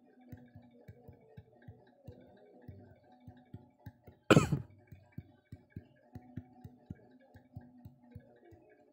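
A person coughs once, short and loud, about four seconds in, over faint regular ticking at about three ticks a second.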